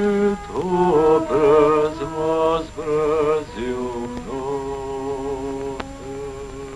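A male voice singing the slow closing phrase of an Albanian song, with ornamented, wavering notes, ending on a long held note that fades away.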